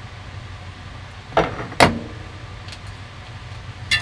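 Two short knocks about half a second apart, midway through, as the emptied glass canning jar and the block of canned bacon are set down on the wooden counter and into a cast iron skillet. A steady low hum runs underneath.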